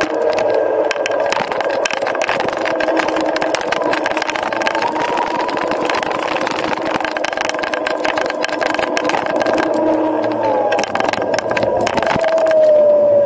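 Dualtron Eagle Pro electric scooter running along the road: its motor whine rises and falls in pitch with speed, climbing a little after the first few seconds and dropping near the end, over wind noise and frequent small clicks.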